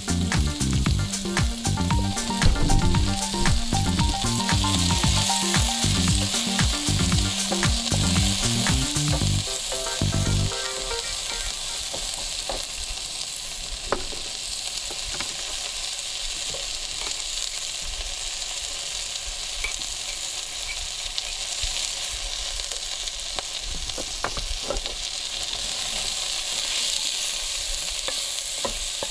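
Sliced vegetables sizzling as they fry in a saucepan on a portable gas camping stove, with a wooden spoon stirring and now and then knocking against the pan. Background music with a low bass line plays over the first ten seconds or so and stops suddenly.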